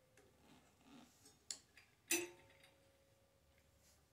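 Hands working a carburetor off a push-mower engine: soft handling noise and light clicks, a sharp click about a second and a half in, then a louder clink about two seconds in, followed by a faint ringing tone that lasts a couple of seconds.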